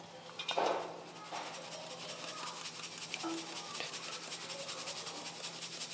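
Round steel sieve shaken by hand over a steel plate, sifting ground beaten-rice and roasted-gram flour: a fast, even rattle and rasp of flour across the mesh. A louder rustle comes about half a second in. The sifting catches coarse grains that would spoil the chakli.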